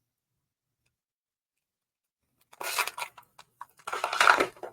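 Crinkling and tearing of a foil trading-card booster-pack wrapper being ripped open, in two short clusters starting about halfway in.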